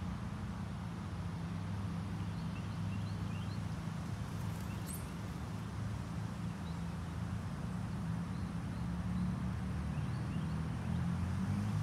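A steady low machine hum, like a motor running, with faint short bird chirps now and then and one brief click about five seconds in.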